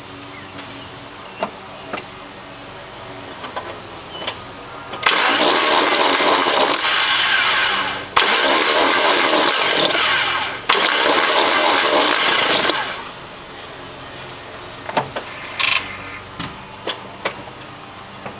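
A Mitsubishi 3000GT's 3.0 DOHC V6 (6G72) is cranked by its starter for about eight seconds, with two brief breaks, and never fires. The crank turns but the cam gears don't move, so the engine can't start: a failed water pump has shed its sprocket and the timing belt may be damaged.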